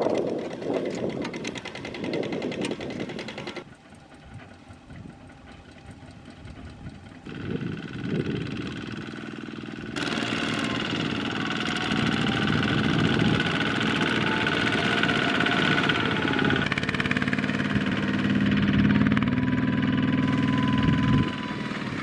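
Single-cylinder diesel engine of a Kubota two-wheel walk-behind tractor running under load as it pulls a riding trailer across a harvested rice field. The sound changes abruptly several times and is quieter for a few seconds near the start.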